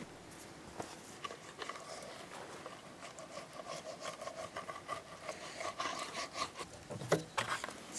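Pizza cutter rolling and scraping through a crusty baked pizza on a metal pizza pan, in a run of rough cutting strokes, with a few sharper knocks near the end.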